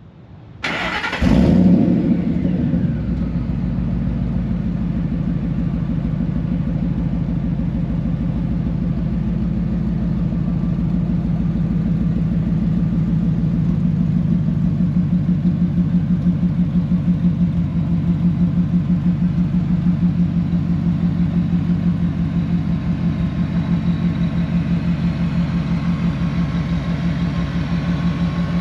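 2004 Ford F-150 Lightning's supercharged 5.4 L V8, cammed with a ported and polished blower, cranks briefly about a second in, catches with a loud flare, then settles within a couple of seconds into an idle with a regular pulsing beat.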